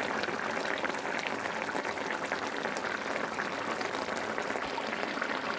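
Hilsa and taro curry bubbling steadily in a frying pan, a dense patter of small pops from the thick gravy as it simmers through its last minutes of cooking.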